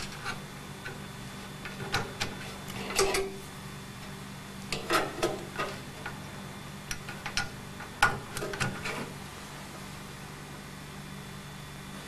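Rustling and clicking of a flat ribbon cable and its plastic connector being handled and pushed onto a motherboard's serial (COM) port pin header, in a handful of short spells, over a steady low hum.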